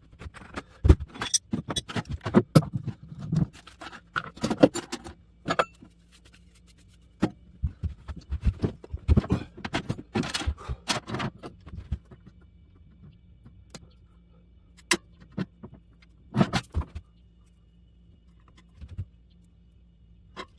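Metal clinking, rattling and knocking of parts and tools being handled while working on a mini bike frame, in busy clusters for the first half or so, then a few single knocks with pauses between.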